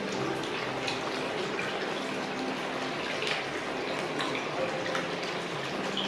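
Hot spring water pouring steadily into a bath, a continuous splashing gush.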